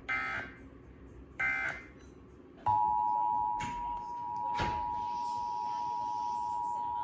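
Emergency Alert System SAME header data bursts: two short buzzy squawks about a second and a half apart. Then, just under three seconds in, the steady two-tone EAS attention signal comes on, announcing a new alert.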